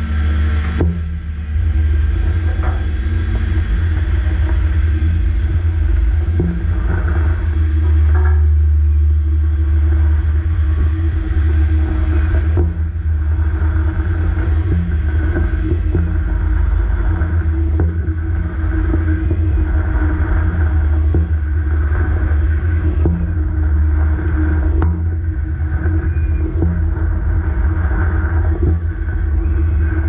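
Heavy machinery running steadily while a diving stage is lowered toward the water: a loud, deep rumble with a faint steady hum above it and a few light knocks.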